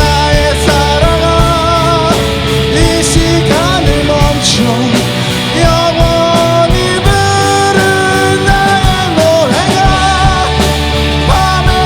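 Rock band playing an original song live in a rehearsal room, recorded through a phone: a loud, dense full-band sound with a sustained lead melody that bends and wavers in pitch over a steady beat.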